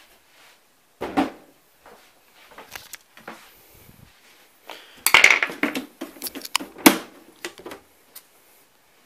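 Handling noise of a Macintosh IIci being opened with a screwdriver: a sharp knock about a second in, scattered small clicks, then a run of clattering and sharp clacks of hard plastic parts from about five to seven seconds in.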